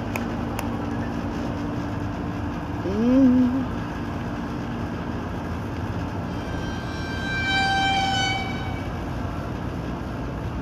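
Steady outdoor street noise with a distant horn sounding one steady note for about two seconds, about seven seconds in. A short voiced 'mm'-like sound, the loudest moment, comes about three seconds in.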